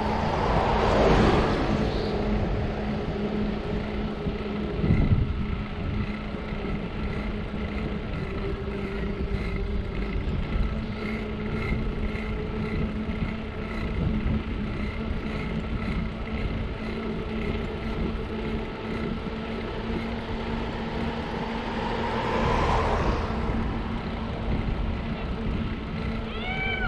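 Steady wind and tyre rumble from a bicycle ride recorded on a GoPro, with a city bus passing close by about a second in, its sound dropping in pitch as it goes. There is a short knock around five seconds in, and another vehicle passes a few seconds before the end.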